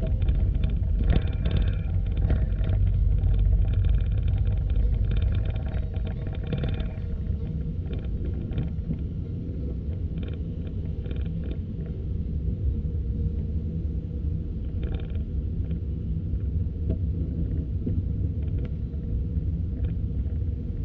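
A steady low rumble of a vehicle or road traffic, with scattered short ticks during the first seven seconds or so.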